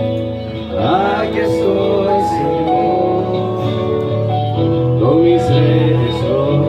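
Christian worship song: a man singing over held instrumental chords, the voice coming in about a second in and again near five seconds.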